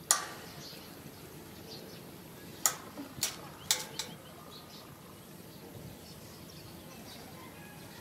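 A sharp click at the very start, then four more sharp clicks or snaps in quick succession between about two and a half and four seconds in, over faint bird chirping.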